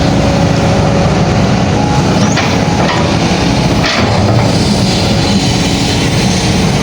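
Hydraulic excavator's diesel engine running steadily close by, with two short knocks, about two and a half and four seconds in.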